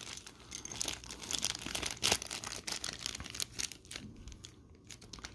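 Thin clear plastic bag crinkling and crackling as hands work it open and take out the small plastic parts; the crackling thins out near the end.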